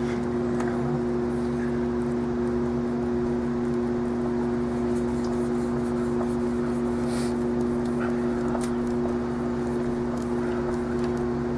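Steady low machine hum with two constant tones, and a few faint ticks over it.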